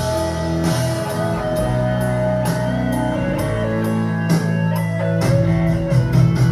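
Rock music without singing: guitar playing a sustained melody line over a drum kit keeping a steady beat.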